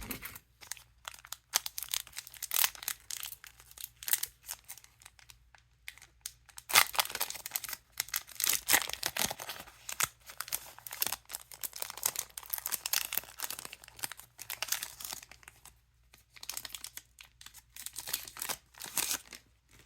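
Crinkling, rustling and tearing of foil trading-card booster pack wrappers handled by hand, with card handling mixed in: an irregular run of crackles with brief lulls about six seconds in and again near the end.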